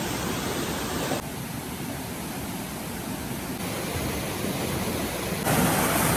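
Steady rush of flowing water, a river or stream, with no distinct events. The level drops suddenly about a second in, comes back up around three and a half seconds, and rises again near the end.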